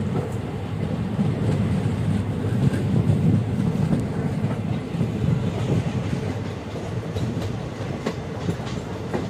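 Passenger train running slowly, heard from the open doorway of the coach: a steady rumble of wheels on the rails, with a few faint clicks near the end.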